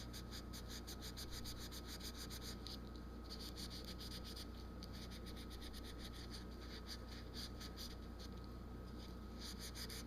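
Steel wool scrubbing a gas furnace's metal flame sensor rod in quick back-and-forth strokes, about four to five a second, pausing briefly about three seconds in and again near the end. The scrubbing cleans off the dirt that stops the sensor from sensing the flame, so that the furnace stays lit.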